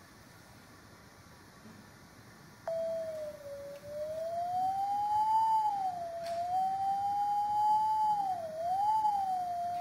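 Near silence, then about a third of the way in a single pure electronic tone starts suddenly and glides slowly up and down in pitch, dipping briefly near the end: the SoundTracer phone app sounding the gesture being traced in the air, its pitch following the phone's movement like a theremin.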